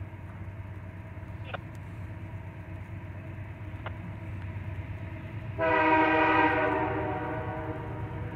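Diesel freight locomotive (a CP AC4400CWM) sounding its air horn for the grade crossing, starting about five and a half seconds in. The chord is loudest for about a second and then keeps sounding more softly, over the low rumble of the approaching train.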